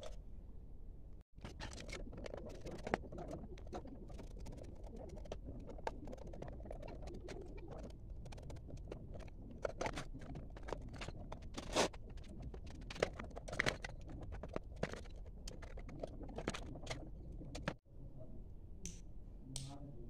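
Scattered irregular clicks and taps of a screwdriver and fingers working at a small plastic rocker switch set in the metal case of an old inverter, over steady low background noise that drops out briefly twice.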